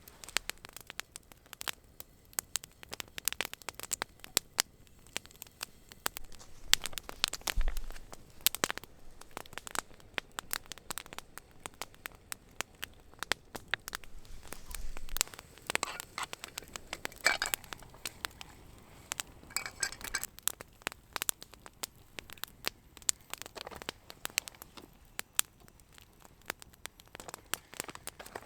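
Campfire crackling and popping with irregular sharp snaps, plus a few brief clinks.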